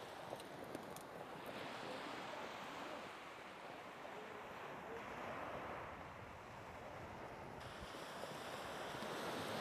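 Surf washing onto a beach, a rush of noise that swells and fades every few seconds.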